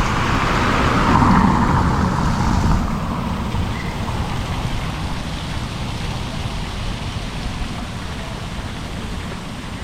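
A road vehicle passing close by, its noise swelling and fading over the first three seconds, over a steady low rumble of street noise.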